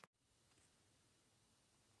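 Near silence: faint room tone, with a faint click right at the start.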